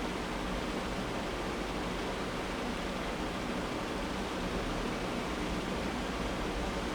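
Steady, even background hiss with no speech: room tone of a hall or small room, with constant air or recording noise.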